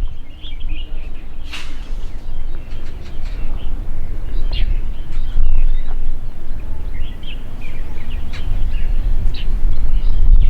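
Birds chirping in short scattered calls, over a loud steady low rumble.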